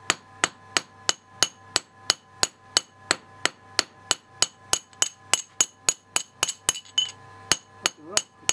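Hand hammer striking a kanna (Japanese plane) blade on the anvil in a steady rhythm, about two and a half blows a second, each a sharp metallic clink with a brief ring. There is a short pause about seven seconds in. The smith is hammering the ura, the back of the blade.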